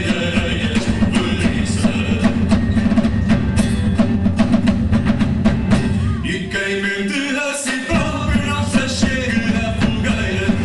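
A live band of acoustic guitars, cellos and a drum kit playing. About two-thirds of the way through, the drums and bass drop out for a moment before the full band comes back in.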